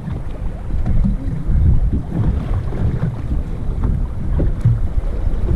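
Wind buffeting the microphone aboard a fishing boat, a loud gusty rumble that rises and falls throughout.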